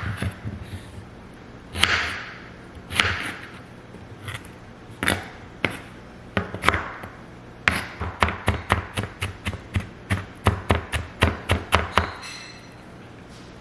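Kitchen cooking sounds: scattered knocks and a few short rustling swishes, then a run of quick sharp taps, about four a second, for several seconds.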